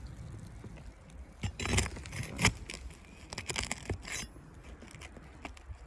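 Scraping and sharp clicks of a tool working asphalt roof shingles loose, in two short clusters, the loudest click about two and a half seconds in.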